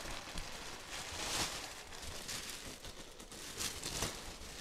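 Plastic wrapping rustling and crinkling as it is pulled and gathered off a new mattress, in a few soft swells.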